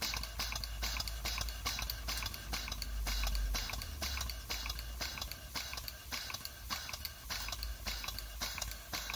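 Stuart Turner No 4 model steam engine running steadily, its exhaust chuffing in a quick, even rhythm.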